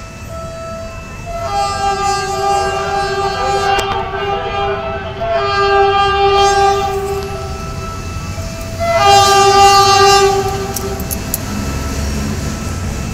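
Air horn of an approaching Philippine National Railways diesel locomotive, several notes sounding at once as a chord: a long blast, then a shorter one about two seconds after it ends.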